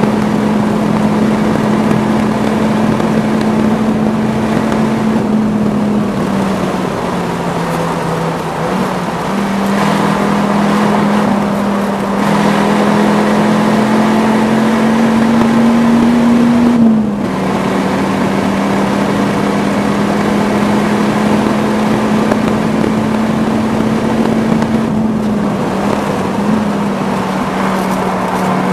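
Dodge Viper X10's V10 engine heard from inside the cabin, driven hard around a lap. The engine note climbs slowly for several seconds, then falls sharply about two-thirds of the way through, with shorter dips before and near the end.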